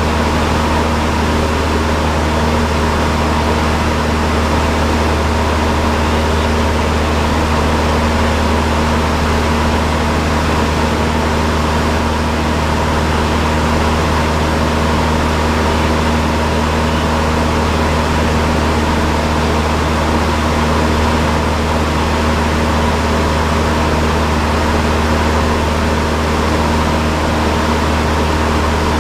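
Cessna 172's piston engine and propeller droning steadily, heard inside the cockpit: an unbroken low drone with steady higher tones over it.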